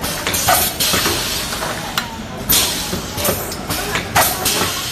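Pneumatic bag-on-valve aerosol filling machine running, with several short, sharp bursts of air hiss from its filling heads and air lines over a steady mechanical din.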